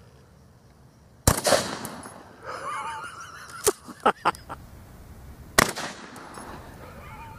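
Two shotgun blasts about four seconds apart, each followed by a ringing echo, with a few short sharp clicks between them.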